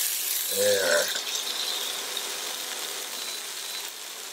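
Halibut fillet sizzling in hot butter and avocado oil in a heavy frying pan just after being flipped onto its unseared side. It is a loud, even hiss that slowly dies down.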